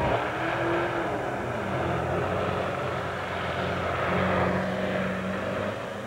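Diesel engine of a Super Farm class pulling tractor running hard under full load as it drags the weight sled down the track.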